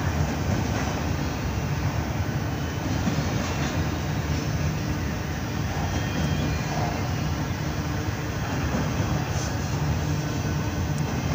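Double-stack intermodal freight train's well cars rolling past on the rails, a steady rumble.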